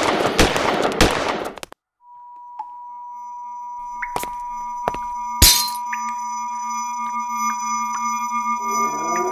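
A burst of rapid gunfire cuts off suddenly about two seconds in. A steady high-pitched pure tone then fades in and holds, with a faint low hum under it and a few single sharp shots or knocks.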